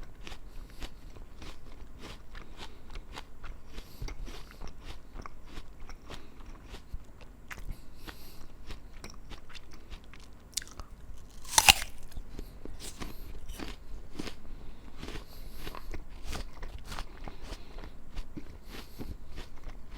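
A person biting and chewing a crisp apple close to the microphone: a run of wet crunches, with one loud, sharp bite a little past halfway.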